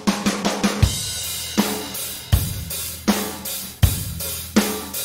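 A recorded drum kit beat plays back through the ReaComp compressor: kick and snare alternate about every three-quarters of a second over hi-hats and cymbals. Partway through, the compressor's detector is switched from feedforward to feedback (pre-fader) mode with the same settings.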